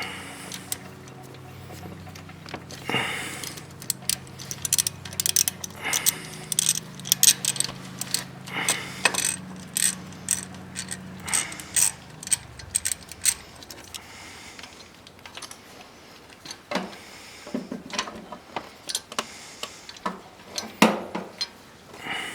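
Hand tools and metal parts being worked on an ATV: irregular sharp metallic clicks and clinks, scattered throughout.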